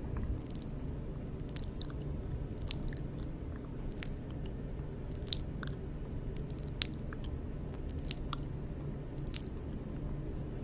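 ASMR mouth sounds: irregular wet clicks and smacks of lips and tongue, several a second, over a steady low rumble.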